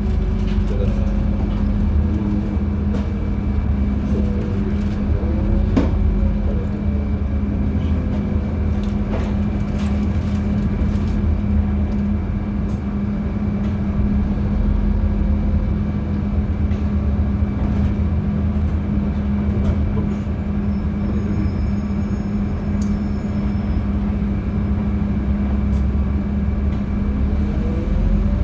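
Gas-powered LiAZ-5292.71 city bus running, a steady low engine drone with scattered rattles and clicks from the bus body. A whine glides in pitch near the start and rises near the end as the bus's speed changes.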